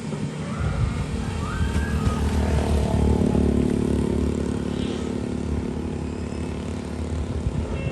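Diesel engines of excavators working in a river, a steady low rumble that grows louder over the first three seconds.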